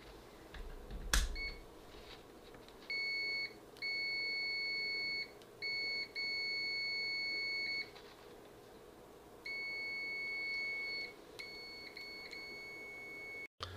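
Victor 970 digital multimeter's continuity beeper sounding a steady high-pitched tone in a string of beeps of uneven length, some short and some over a second long, the last few quieter. A small knock comes about a second in.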